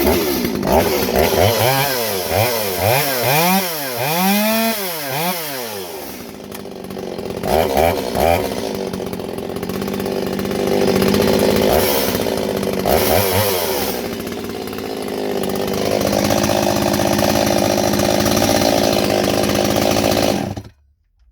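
Freshly rebuilt Stihl 023 two-stroke chainsaw running, its throttle blipped in quick bursts of rising and falling revs with steady idling between them. It cuts off suddenly near the end as the engine is switched off.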